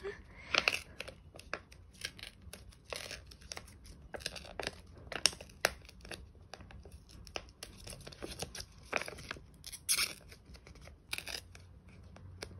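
Brown kraft paper being torn by hand along its edge, in many short rips at irregular intervals.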